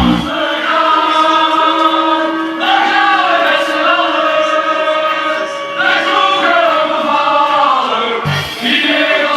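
Music: choir-like voices holding long notes. A deep bass beat hits at the start and comes back about eight seconds in.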